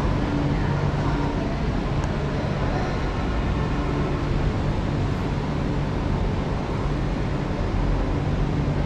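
Hanoi Metro Cat Linh–Ha Dong line electric train running, heard from inside the car: a steady rumble of wheels on the track with a low hum that drops away in the middle and comes back near the end.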